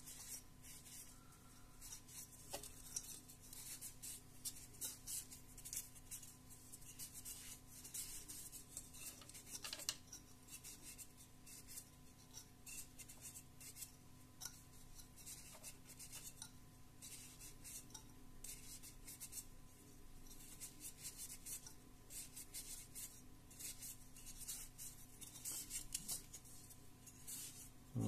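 Cotton pad rubbing over a plastic computer case fan, wiping dust off its frame and blades with isopropyl alcohol: faint, repeated scrubbing strokes.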